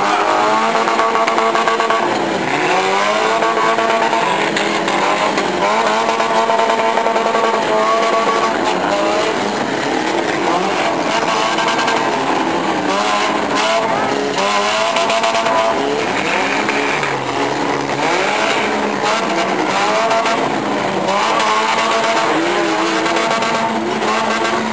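Several small demolition derby cars' engines revving hard together, their pitch climbing and dropping over and over as the cars ram and back off, with tyres spinning on the dirt.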